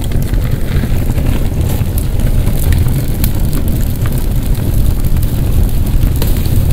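Charcoal burning in two chimney starters, with scattered crackles and pops over a steady low rumble.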